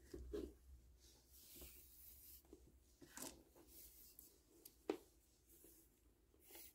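Near silence with faint rustling as white stretch beading string is pulled out and handled between the fingers, with scattered small clicks and one sharper tick about five seconds in.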